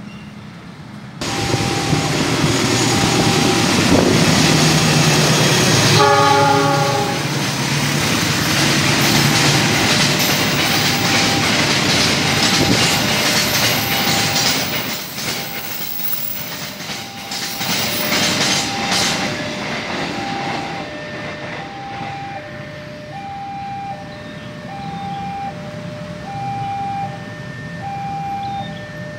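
A freight train of loaded flatcars rolling past, its wheels clattering and rumbling on the rails, with a short diesel locomotive horn blast about six seconds in. A level crossing warning signal keeps sounding an alternating two-note chime, heard clearly as the train noise fades in the second half.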